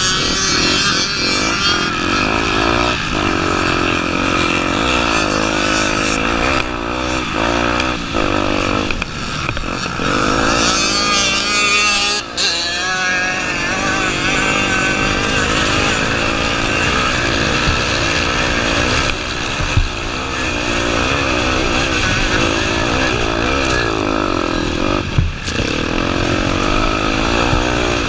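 Honda Tornado 250's single-cylinder four-stroke engine running hard off-road, its revs rising and falling over and over with the throttle. There is a brief drop in revs about twelve seconds in, and another near the end.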